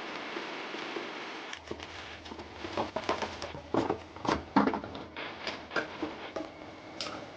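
Irregular clicks, knocks and clatter of hand work on toilet parts and tools, denser in the middle, with a low hum starting about a second and a half in.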